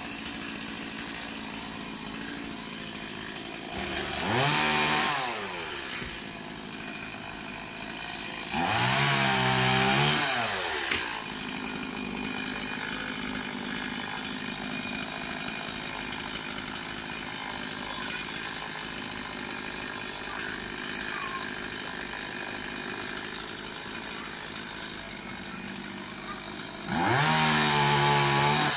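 Chainsaw running at idle, revved up three times. Each time the pitch climbs and then drops back.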